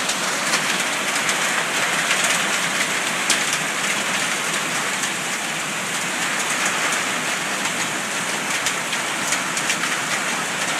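Heavy rain pouring down steadily, with many scattered sharp ticks of drops striking hard surfaces.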